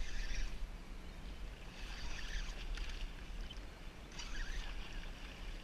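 Hooked striped bass thrashing at the surface beside a kayak: short splashes about every two seconds over a steady low rumble of wind and water.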